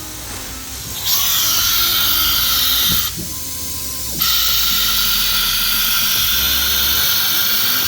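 CNC router's automatic tool-changing spindle working through a tool change: a loud, high-pitched hissing whine starts about a second in. It breaks off around three seconds, then comes back a second later and runs steadily.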